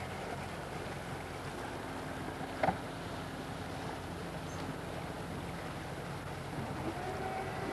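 A motorboat engine hums steadily under a hiss, broken by one short, sharp click about two and a half seconds in.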